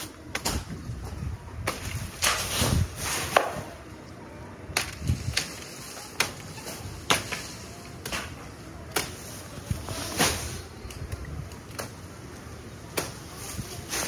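Machete blade chopping into coconut palm frond stalks: a series of sharp, irregularly spaced chops, one to two seconds apart.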